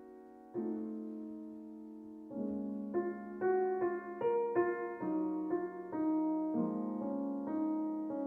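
Slow solo piano music: notes and chords struck one after another, each left to ring and fade.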